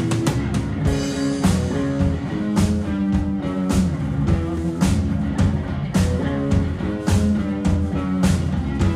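A live rock band playing an instrumental passage: electric guitar and bass guitar over a steady drum-kit beat.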